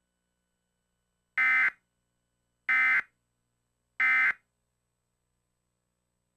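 Emergency Alert System end-of-message tones: three short digital data bursts, evenly spaced about a second and a quarter apart, which signal that the alert is over.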